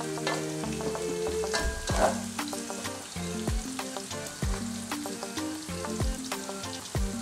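Onions sizzling as they fry and caramelize in oil in a pot, with a spoon stirring them at the start. Background music with a steady beat plays underneath.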